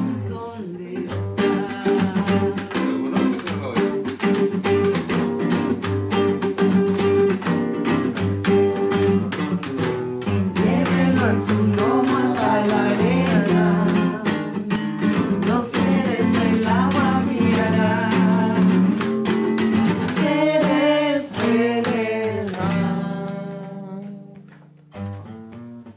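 A band playing, with guitar to the fore, steady rhythmic strokes and a singing voice. The music drops off and fades near the end.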